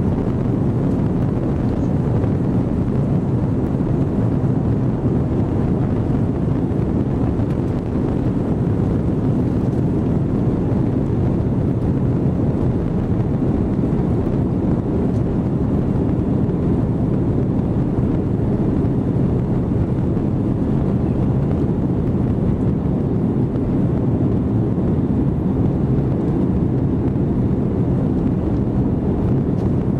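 Steady, loud, low rumble of an Airbus A330-200's jet engines at takeoff power, heard inside the passenger cabin during the takeoff and climb-out.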